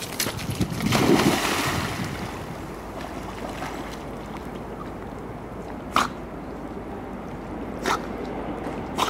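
A dog jumping into a river with a loud splash about a second in, then water sloshing as it swims. Three short sharp clicks come later.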